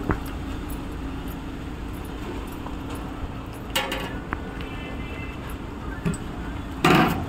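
Street-food stall sounds: a steady low hum under light clinks of steel ladles and spatulas against pans and plates, with a short loud rush of noise near the end.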